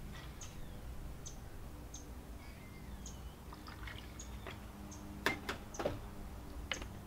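Cranberry juice poured from a bottle into a metal jigger, then dribbled from the jigger over ice in a stemmed glass. Near the end come a few sharp clinks as the jigger and bottle are set down on the table.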